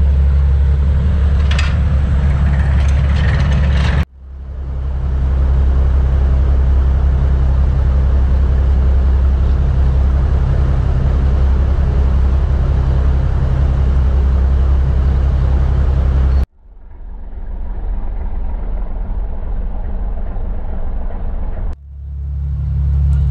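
Steady low drone of a river ferry's diesel engine running. The sound breaks off abruptly three times and swells back each time.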